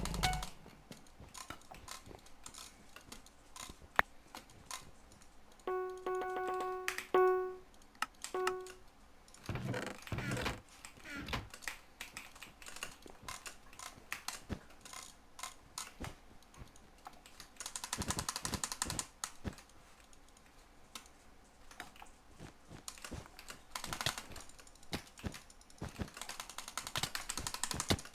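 Keyboard keys clicking in irregular taps, now and then thickening into bursts of fast typing. About six seconds in, a steady pitched tone sounds three times in quick succession.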